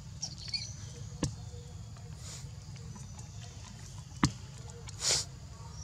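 A young macaque handling and eating green fruit: two sharp clicks and a short breathy puff near the end, over a low steady rumble.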